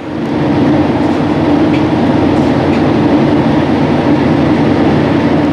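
Loud, steady mechanical noise: a dense rumble with a held low hum. It builds up over the first half second and drops away at the end.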